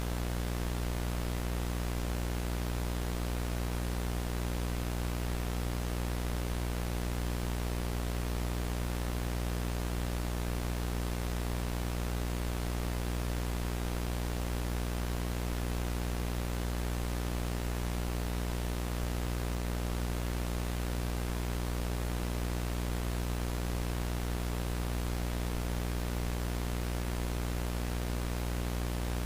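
VHS tape playback noise: a steady tape hiss over a low, buzzing electrical hum, unchanging throughout.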